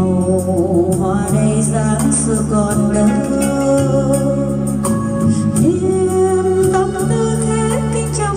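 A song with singing over backing music: sustained bass notes, a melody and a steady high percussion beat.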